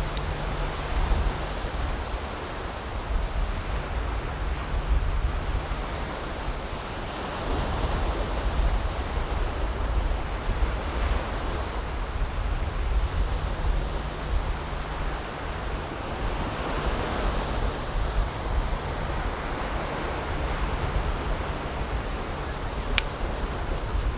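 Surf washing on the beach, swelling and easing in slow surges, with wind buffeting the microphone. A low steady hum lies underneath, and there is a single sharp click near the end.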